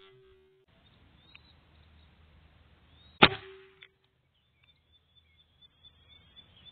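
A single sharp shot from a Benjamin Discovery .22 PCP air rifle, about three seconds in.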